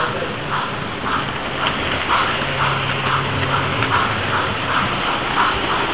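Steam chuffing from the sound decoder of an OO gauge GWR pannier tank model locomotive, played through its small speaker as it hauls a train of wagons: an even beat of about two chuffs a second.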